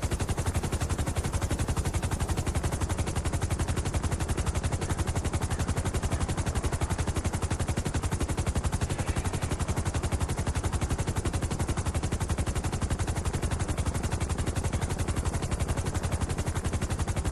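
A fast, even rattle of sharp pulses, about fifteen a second, holding a steady level.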